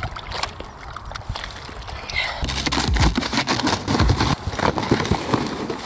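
A hand squelching through a tub of petroleum jelly, with faint wet clicks. About two and a half seconds in, this gives way to cardboard boxes being pulled open and rummaged, with scraping and rustling flaps and a few dull thumps.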